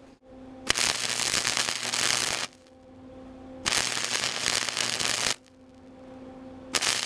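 Flux-core wire-feed welder stitch-welding thin sheet steel: three crackling bursts of arc, each a second and a half to two seconds long, with a steady hum in the pauses between them. The welds are kept short and intermittent because a continuous bead would burn through the thin sheet metal.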